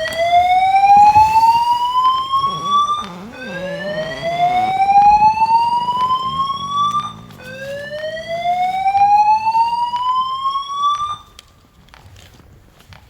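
Voice-evacuation fire alarm sounding its slow-whoop tone: three loud rising whoops, each climbing for about three and a half seconds, the last one ending about eleven seconds in.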